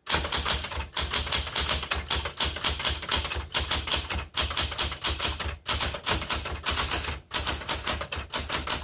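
Smith Corona Classic 12 manual portable typewriter being typed on at speed: a quick run of type-bar strikes, several a second, with a few brief pauses. It keeps typing past the right margin with the margin release pressed.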